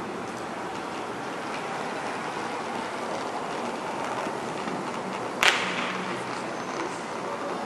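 Steady noise of city traffic on a busy street below, with one sharp bang about five and a half seconds in that dies away quickly.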